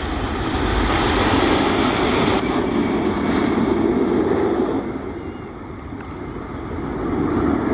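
Aeroplane engine noise from a fixed-wing aircraft flying a display, a dense steady rush that changes abruptly about two and a half seconds in, dips a little past the middle and builds again near the end.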